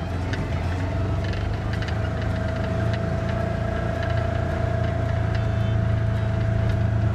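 Side-by-side utility vehicle driving over rough ground, heard from inside the open cab: a steady low engine and drivetrain drone with a thin steady whine over it and scattered rattles and clicks.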